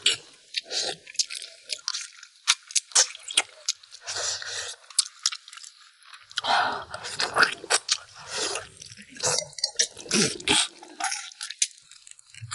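People chewing and gnawing on braised lamb ribs by hand: many short, irregular crunches and clicks of biting and chewing meat off the bone.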